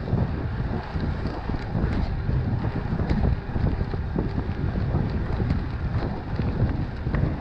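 Wind buffeting the microphone of a camera on a mountain bike ridden at speed: a heavy, fluttering low rumble with a few sharp clicks.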